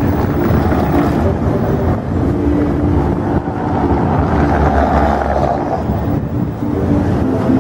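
City street traffic: car engines running and passing, with a car going by about five seconds in, over wind rumbling on the microphone.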